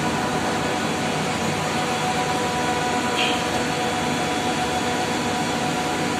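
Steady drone of running air-cooled chiller machinery: a broad, even rush of air with several constant humming tones over it.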